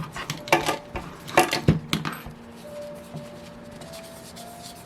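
Small metal engine parts clinking and knocking as they are handled and set down on a workbench: a few sharp clinks in the first two seconds, then quieter handling.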